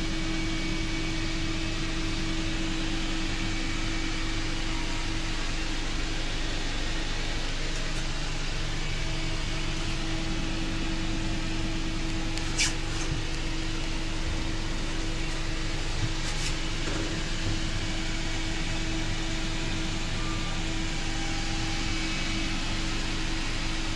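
Steady hum and rushing noise inside an air-conditioned Indian Railways Garib Rath sleeper coach, with a constant held tone and a faint click about halfway through.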